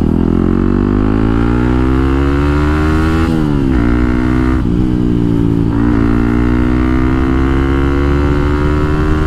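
TVS Apache RTR 160 4V's single-cylinder engine running through an aftermarket exhaust, very loud. Its pitch climbs steadily, drops sharply about three seconds in, dips twice more a little later, then climbs slowly again.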